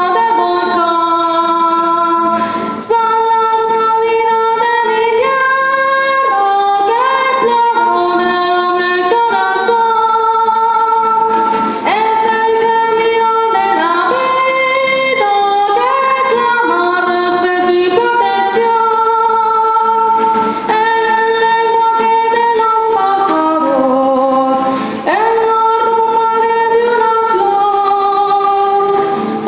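A woman singing a Colombian sanjuanero song in caña rhythm over instrumental backing, holding long notes, with short breaks between phrases.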